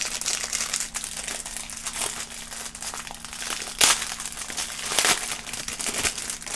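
Packaging crinkling and rustling as the contents are taken out of a box, with two louder crackles about four and five seconds in.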